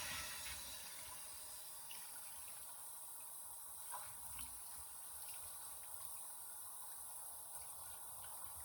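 Faint steady running water from a sink tap, with a few light clicks.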